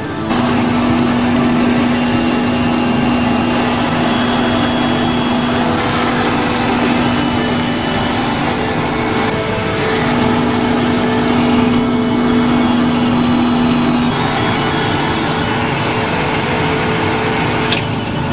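Electric blower of a DIY coffee-roaster smoke-exhaust setup running steadily: a loud rush of moving air with a steady hum. A few sharp clicks come near the end.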